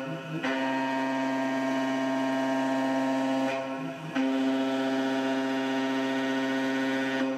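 A CNC gantry mill face-milling aluminium with a 3/8-inch two-flute carbide end mill at 8000 RPM on a 0.045-inch-deep roughing pass: a steady, high-pitched cutting whine. The whine breaks off briefly at the start, again about halfway through and near the end, as the cutter leaves the stock between passes across the part.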